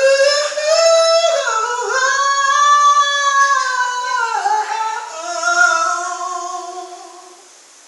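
A solo voice singing a cappella, with no accompaniment: long, high held notes that bend in pitch, then a slide down about halfway through to a lower held note that fades out near the end.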